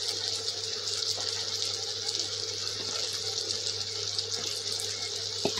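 Vegetables and dry fish sizzling in oil in a steel pan: a steady crackling hiss over a steady low electrical hum, with a small click near the end.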